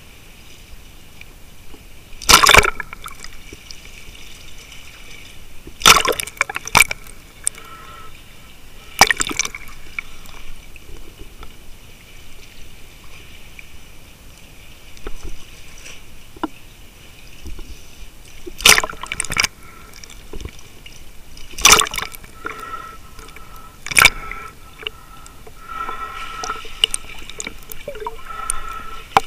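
Underwater recording of moving water and swell, with sharp knocks or bumps every few seconds, about eight in all. A faint steady whine joins in over the last several seconds.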